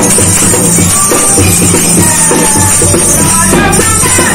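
Women singing a devotional kirtan, accompanied by a dholak played with the hands in a steady beat and a high jingling percussion.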